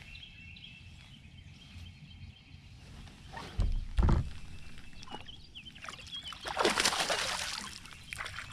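Two dull knocks against a fishing boat's hull about halfway through, then about a second of water splashing near the end, while the angler handles a freshly caught bass.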